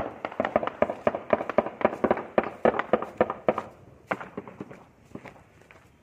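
Gunfire in an armed clash: many rapid, irregular shots packed close together for about the first three and a half seconds, then a few scattered shots.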